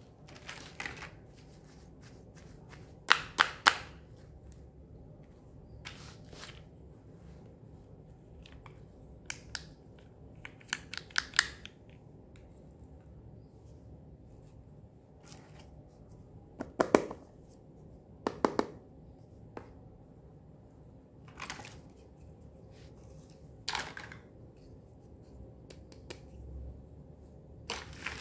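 Hard plastic toy pieces (play shoes, a toy hair straightener, a handbag and a brush) being handled and set down one by one on artificial grass, giving scattered clicks and taps, some in quick little clusters, over a faint steady background noise.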